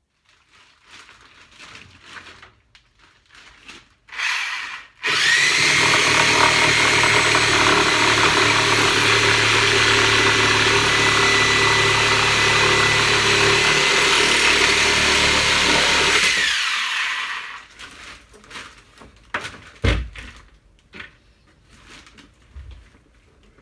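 An electric power tool motor spins up about five seconds in, runs steadily at full speed for about eleven seconds, then winds down. Scattered knocks and clunks of handling lumber come before and after it, with one sharp knock a few seconds after the motor stops.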